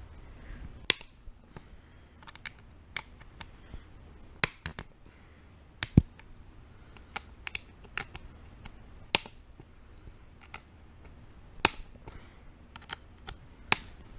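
Irregular sharp clicks and taps of small hand tools and screws being handled while an RC truck is taken apart. There are about a dozen and a half separate clicks at uneven spacing, the loudest about six seconds in.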